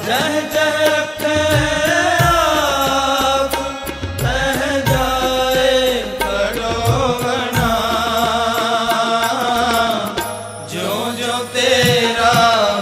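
Background devotional music: a voice singing a slow, gliding Sikh hymn (shabad) over low drum beats.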